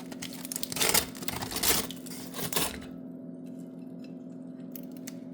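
Kitchen handling noises: a few clattering, scraping knocks, the loudest about a second in and again near two seconds, over a steady low hum that carries on alone for the second half.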